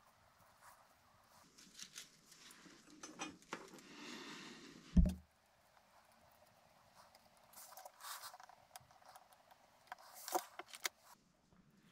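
Faint scrapes, rustles and small clicks of hands handling a motor's winding leads and small metal connectors, with one low thump about five seconds in.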